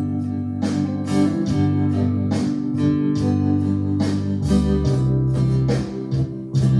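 Instrumental music between sung lines: guitar chords struck in a steady rhythm over held bass notes, the chord changing about two-thirds of the way through.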